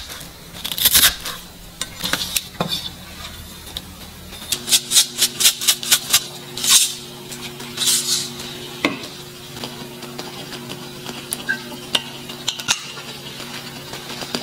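A chef's knife slicing a green onion on a wooden cutting board, a few knocks. Then a steady electric hum from an induction cooktop under a glass pot of steaming water, with a quick run of clicks and taps as salt and oil go into the water.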